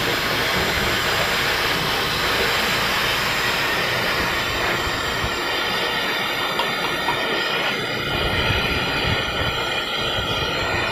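Hair dryer running steadily, blowing dust off a CRT television's circuit board during cleaning. The high hiss eases a little about four seconds in.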